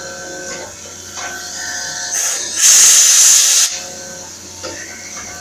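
CNC milling machine cutting a copper electrode, running with steady whining tones. A loud hiss starts about two seconds in and cuts off sharply about a second and a half later.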